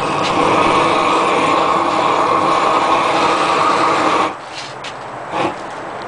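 Propane roofing torch burning with a steady rushing noise while heating bitumen membrane, cutting off suddenly about four seconds in, followed by a brief knock.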